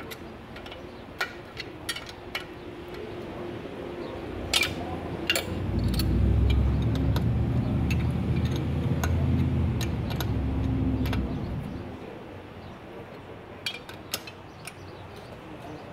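Metal wrenches clicking and clinking on a bolt and nut as they are turned by hand. A low rumble swells up for about five seconds in the middle and then fades.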